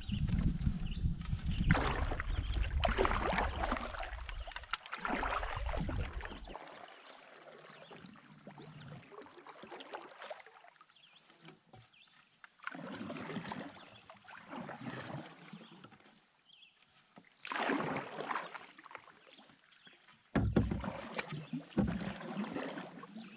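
Canoe being paddled: paddle strokes swishing and splashing in the water every few seconds, with wind rumbling on the microphone for the first several seconds.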